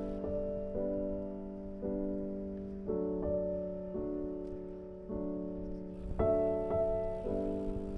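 Background music: piano chords, a new chord coming in every second or so.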